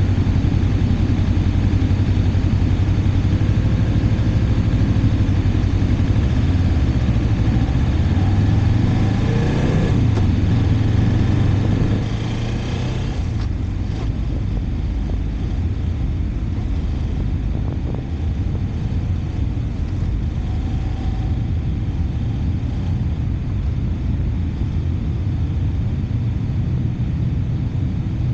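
Motorcycle engine running while riding, with wind and road noise. Its revs climb from about 8 seconds in, then drop at about 12 seconds as the throttle closes, and it runs lower and steadier after that.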